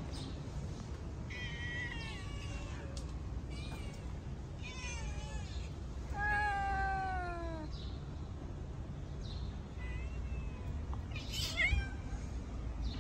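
Stray cats meowing, about five separate meows at different pitches. The longest and loudest, drawn out and falling in pitch, comes about six seconds in, with a short high mew near the end, over a steady low background rumble.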